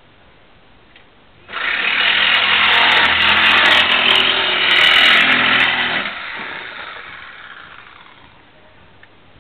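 A loud motor starts abruptly, runs for about four and a half seconds with a steady hum under a harsh noise, then stops and dies away over a couple of seconds.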